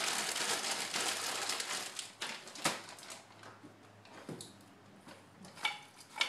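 Plastic bag of frozen vegetables crinkling as it is handled for about the first two seconds, then a few separate light knocks.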